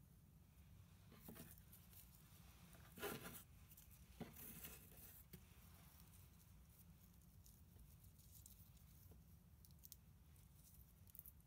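Faint gritty crunching and scraping of coarse potting mix as fingers push Babiana corms into a terracotta pot. It is loudest about three seconds in and again around four to five seconds, with a few small ticks near the end, over a low background hum.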